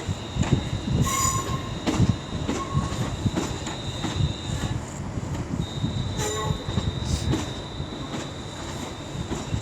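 Class 350 electric multiple unit moving at the platform, its wheels rumbling and clunking over the track. A steady high-pitched wheel squeal holds for about four seconds, breaks off briefly, then comes back.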